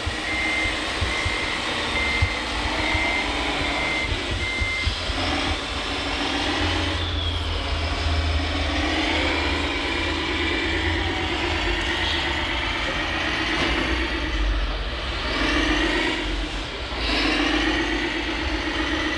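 Radio-controlled model construction machines working: a reversing beeper sounds about once a second for the first five seconds, over the whine of electric motors and hydraulics rising and falling in pitch as the machines move.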